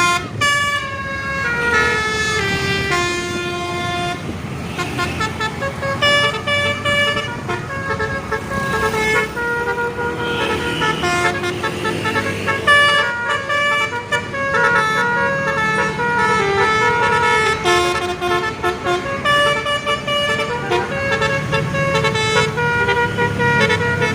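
Tour bus's basuri telolet horn playing a melody: quick runs of short horn notes, many stepping down the scale, in phrase after phrase, over the bus engine's low rumble.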